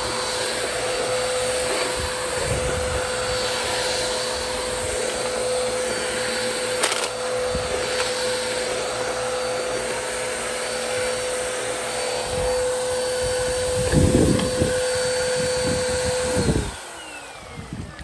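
Upright vacuum cleaner running outdoors with a steady motor whine and rush of air, with a brief louder clatter about three-quarters of the way in. Near the end the motor is switched off and the whine falls away as it winds down.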